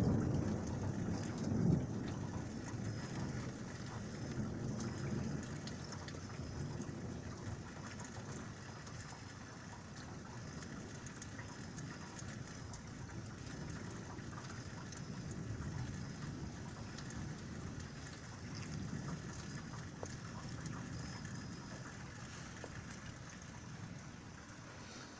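Thunder rumbling during a thunderstorm, loudest in the first few seconds with a sharp peak about two seconds in, then dying away into weaker rolls, over steady rain pattering.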